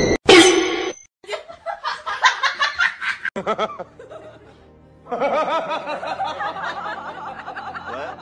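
Bouts of snickering laughter over background music, with a lull of a second or so in the middle.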